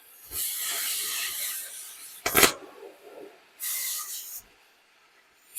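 Oxy-acetylene torch gas hissing for about two seconds, a sharp pop as it lights about two seconds in, then a shorter hiss of gas. The torch is being readied to heat and cut off a nut crudely welded to a corn picker's row divider.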